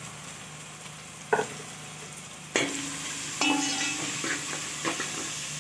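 Onion and spice masala sizzling in oil in a metal pot while a metal spoon scrapes and clinks against the pot as it is stirred. There is a single tap about a second in, and the sizzle and stirring get louder about halfway through.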